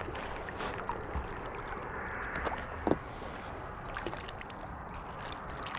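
Water splashing and lapping around a sea kayak, with scattered small splashes and one short knock about three seconds in.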